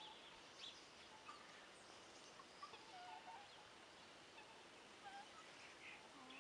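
Near silence outdoors, with faint, short bird chirps and peeps scattered through it.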